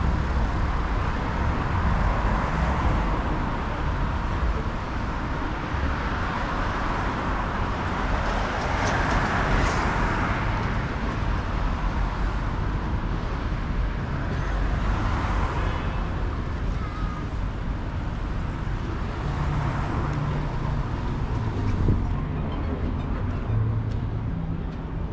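City street traffic: cars driving past in a steady stream, the noise swelling now and then as vehicles go by close.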